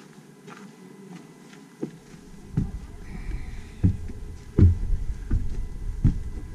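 Footsteps on weathered wooden steps and a hollow wooden porch floor: dull thumps about every three-quarters of a second, starting about two seconds in.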